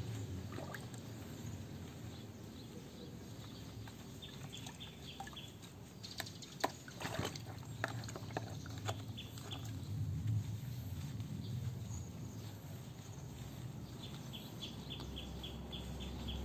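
Water splashing and sloshing in a plastic basin as a wet puppy is washed by hand, with a few sharper splashes and knocks in the middle. High-pitched chirping comes in quick runs near the start and again near the end.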